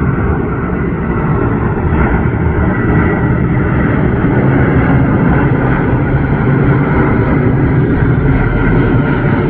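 Boeing 787-8 airliner's jet engines running: a loud, steady rumble of jet noise with a faint whine above it, growing a little louder over the first few seconds and then holding.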